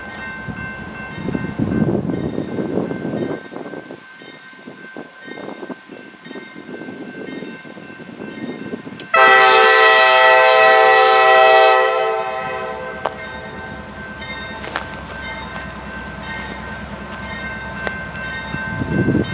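Freight diesel locomotive's air horn sounding one long blast of about three seconds, starting abruptly about nine seconds in. Under it are a steady locomotive rumble and bells ringing over and over.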